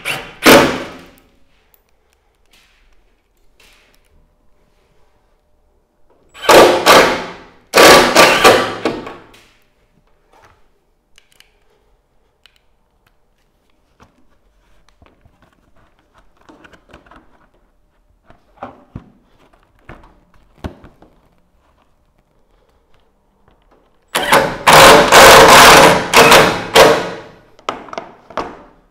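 Cordless impact driver driving fixings to pin a gutter liner in place, in several loud bursts: a short one at the start, two about six to nine seconds in, and a longer run near the end, with light handling clicks between.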